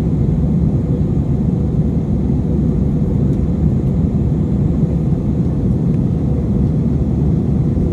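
Jet airliner's steady cabin rumble from the engines and airflow while the aircraft climbs after take-off; a deep, even noise with no change.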